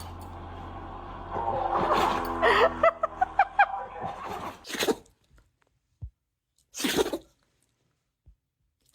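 A dog sneezing twice, two short sharp bursts about two seconds apart, after a few seconds of background music.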